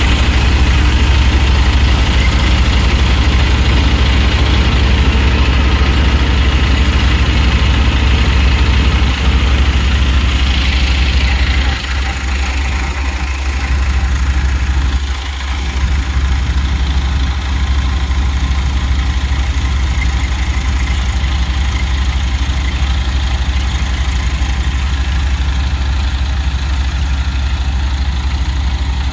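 Tractor engine running steadily under load, driving a tractor-hitched threshing machine as crop stalks are fed in, with a constant low hum and a mechanical clatter over it. The sound dips briefly twice near the middle.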